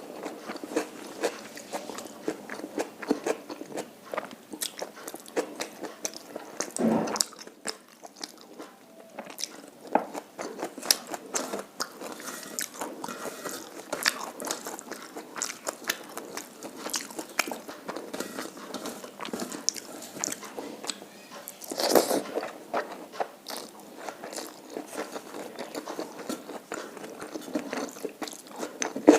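Close-up eating sounds: steady chewing and wet mouth clicks, with two louder crunches about seven and twenty-two seconds in.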